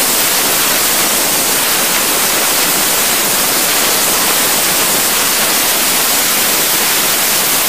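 Compressed air hissing from a duct-cleaning air whip blowing inside sheet-metal ductwork: a loud, steady rush of air that does not change.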